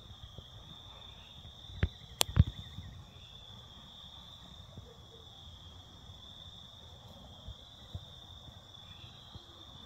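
Steady high-pitched trilling of insects, with a few sharp knocks about two seconds in.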